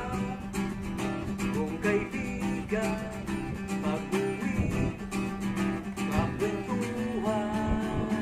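Background music: acoustic guitar strumming in a steady rhythm under a melodic line.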